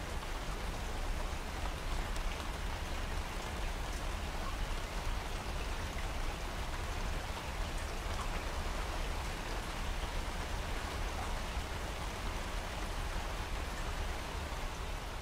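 Steady rain falling on open water, a dense even patter of drops with a steady low rumble underneath.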